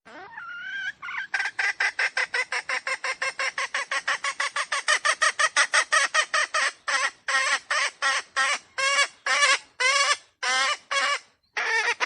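Red junglefowl giving a long opening call, then a rapid train of short clucking calls, about five a second, that slows to about two a second in the second half and ends with a short pause and one last call.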